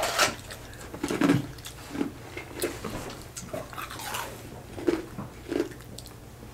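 Chewing and biting into hard taco shells close to the microphone: irregular crisp crunches mixed with soft mouth sounds.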